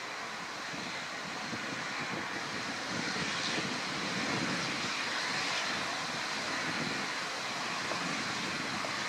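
ATR 72's twin turboprop engines and propellers running as the airliner rolls past on the runway after touchdown: a steady rushing noise with a faint constant hum, growing a little louder over the first few seconds as it passes.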